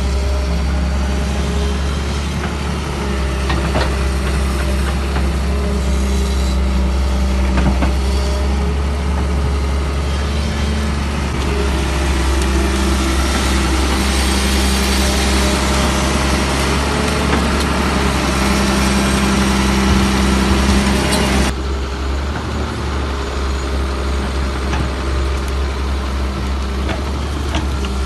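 Excavator's diesel engine running steadily with a deep rumble, with a few faint knocks over it. The level drops suddenly about 21 seconds in.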